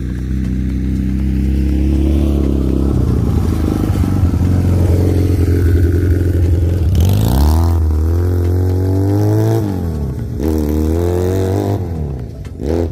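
Chinese 250cc ATV's engine running as the ATV is ridden past, rising in pitch twice as it accelerates in the second half, then fading as it moves away near the end.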